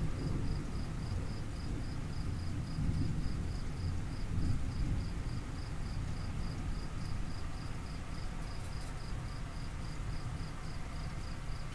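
A cricket chirping steadily in a high, even rhythm of about three to four chirps a second, over a continuous low rumble.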